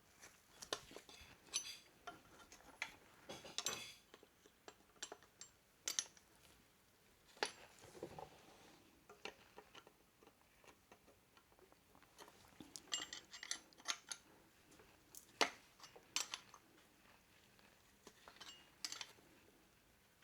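Hand tools working small screws on a motorcycle engine as they are snugged up: scattered sharp metallic clicks and clinks, some with a short ring.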